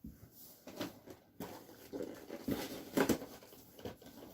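Noctua fan packaging being handled and opened: a scattered series of short taps, clicks and rustles of cardboard and plastic.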